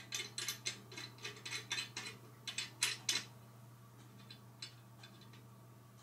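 Sheet-steel airsoft pepper popper plate and stand being handled while the plate is fitted and its tip-resistance knob turned: a quick run of small metal clicks and knocks for about three seconds, then a few scattered clicks.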